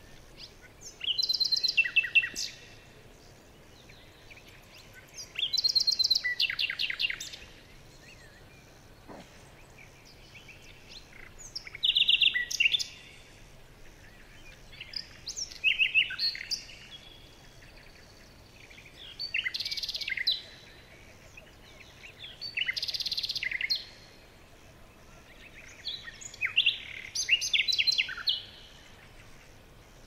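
Songbird singing: short, bright phrases of rapid trilled notes, about seven of them, one every three to four seconds, over a faint background hiss.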